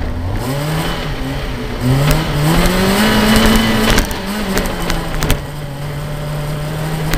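Nissan Micra rally car's engine revving hard on a gravel stage, with gravel noise from the tyres; the revs climb twice, hold high, drop about four seconds in, then run steady. A couple of sharp knocks come near the middle.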